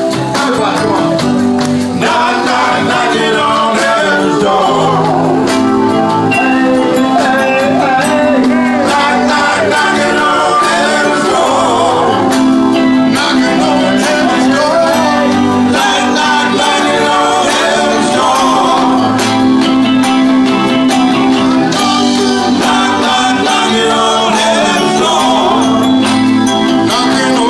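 Live band playing through PA speakers: electric guitars and drum kit behind a male lead singer, singing throughout.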